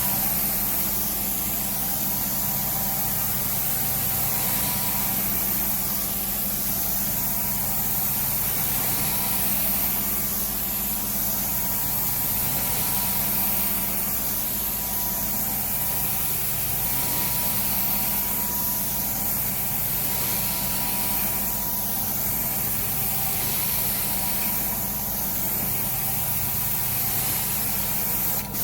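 Carpet extraction machine running steadily: a low engine-like hum under a constant hiss of spray and suction, with a short click near the end.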